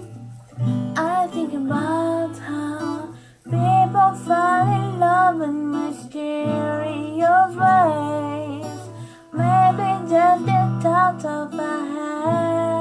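A woman singing a slow ballad to her own acoustic guitar accompaniment, in phrases separated by short pauses.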